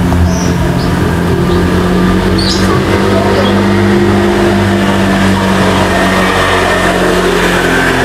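A steady, loud engine-like hum that keeps an even pitch, with a few short high chirps in the first few seconds.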